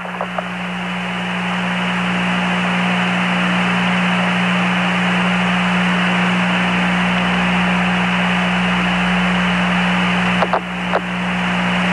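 Steady radio static hiss with a low, steady hum on the Apollo 11 air-to-ground voice link. The hiss dips briefly, with a couple of faint clicks, about ten and a half seconds in.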